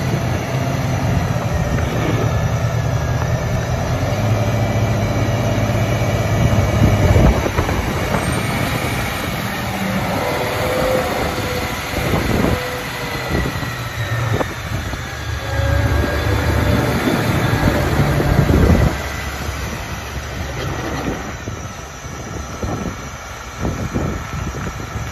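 Massey Ferguson 8690 tractor's six-cylinder diesel engine running as the tractor drives slowly across a snowy yard, the engine note rising and falling as it moves, with a faint whine coming and going in the middle. The sound drops somewhat after about two-thirds of the way through.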